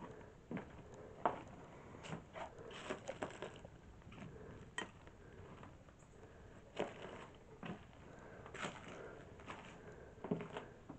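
Slow, irregular footsteps crunching over debris, with scattered sharp knocks.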